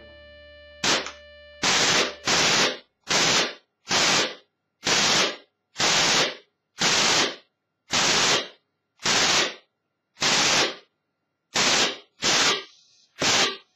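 Single gunshot sound effects taken from the video game Battlefield 2, fired one at a time about once a second, roughly fourteen shots in all with short gaps between them.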